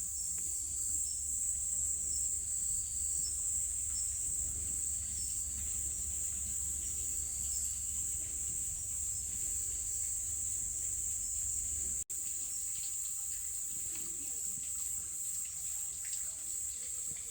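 Autumn insects, crickets or similar, chirring in a steady high-pitched drone, with short repeated chirps just below it. The sound drops out for an instant about twelve seconds in.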